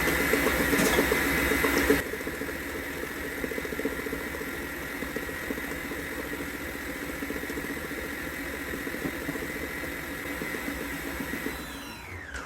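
Deluxe stand mixer motor running on its beat setting, the beater working a thick pound-cake batter in a steady, slightly rhythmic churn. It drops in loudness about two seconds in, and near the end the motor winds down with a falling pitch as the two-minute beat cycle finishes.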